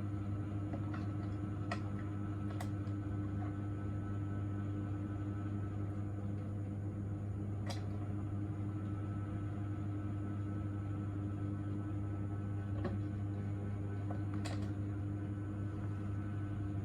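Steady low machine hum, with a few short sharp clicks scattered through it.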